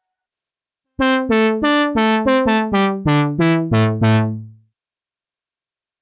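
Tone2 Saurus 3 software synthesizer playing its 'Synthetisch' brass patch: a quick run of about eleven bright, sharply struck notes stepping down in pitch. The last, lowest note is held briefly and fades out.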